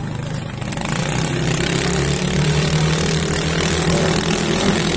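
Engines of racing motorized bancas (outrigger boats) running steadily at speed, growing louder about a second in.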